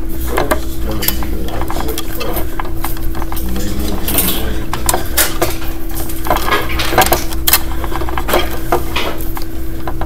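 Needle-nose pliers gripping and twisting copper ground wire inside a metal electrical box: irregular metallic clicks, clinks and scrapes of tool and wire against the steel box, over a steady low hum.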